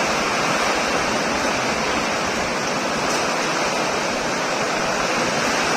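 Heavy downpour: torrential rain pouring down in a steady, dense rush.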